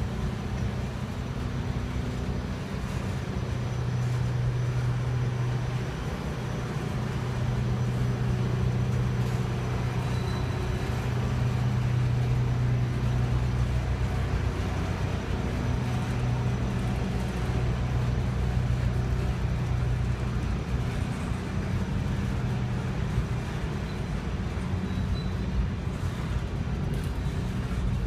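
Canadian Pacific freight train's boxcars rolling past, steel wheels on the rails making a steady low rumble.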